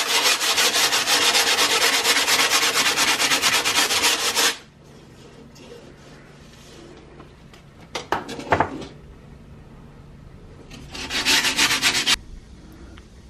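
Heavy-grit sandpaper rubbed by hand along the rough cut edge of a chrome car grille frame, in fast back-and-forth strokes for about four and a half seconds, then again briefly near the end. A couple of sharp knocks come in the quiet middle stretch.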